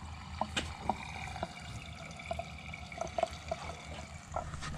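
Gasoline flowing from a plastic jerry can through a hose into a pickup truck's fuel filler, bubbling and gurgling, over a steady low hum.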